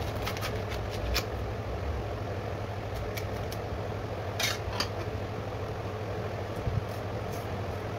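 Cabbage being sliced against an upright curved blade (a boti), with short crisp crunches and snaps at irregular intervals, the strongest about halfway through, over a steady low hum.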